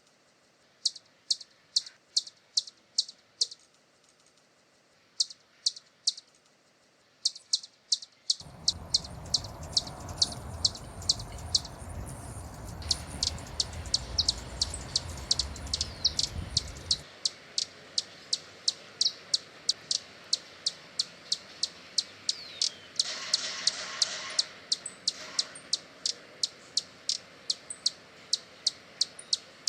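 Hummingbird calling with a long series of short, high chip notes, about two or three a second at first and quicker later. A low rumbling noise runs under the calls for several seconds in the middle.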